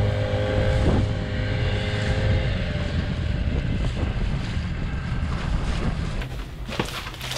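Inflatable dinghy under outboard power: the motor's steady drone with water rushing along the hull and wind buffeting the microphone, easing off about six seconds in as the dinghy comes alongside the sailboat.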